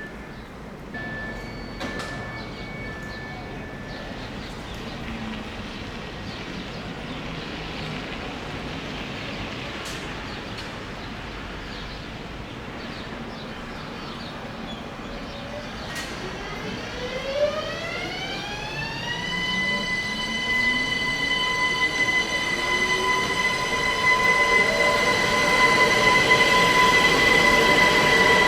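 ÖBB class 1144 electric locomotive whose cooling blowers wind up with a rising whine over about three seconds, then hold a steady whine that grows louder toward the end. This is the vacuum-cleaner sound behind the class's nickname 'Alpenstaubsauger'. An on-off beeping sounds in the first few seconds.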